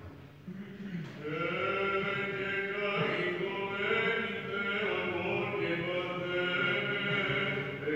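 Orthodox monks' Byzantine chant at Vespers: men's voices sing a slow melody in long held notes over a steady low drone, growing louder about a second in.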